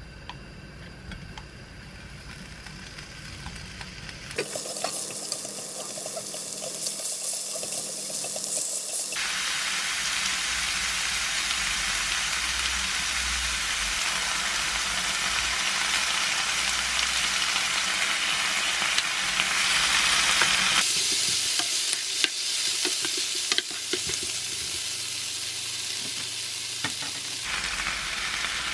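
Shrimp and squid frying in olive oil with minced garlic in a frying pan, stirred now and then. The sizzle is faint for the first few seconds, then steady and louder, with a few sharp clicks a little past the middle.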